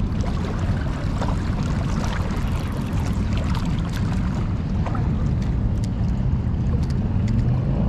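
Steady rush of fast, turbulent river water below a dam spillway, with a heavy low rumble under it and scattered small clicks.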